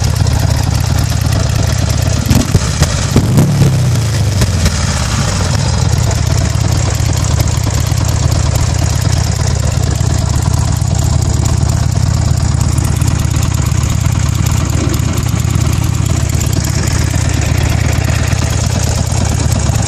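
Buell Ulysses XB12X's 1203 cc air-cooled V-twin idling steadily through its aftermarket exhaust, with a brief blip of the throttle about three seconds in. The idle shakes the bike hard enough that it is called a paint shaker.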